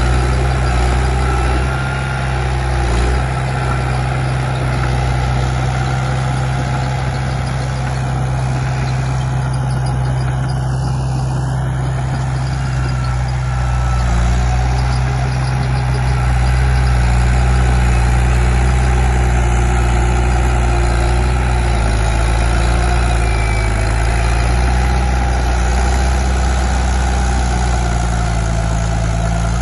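Komatsu D31P bulldozer's diesel engine running steadily, getting slightly louder about halfway through.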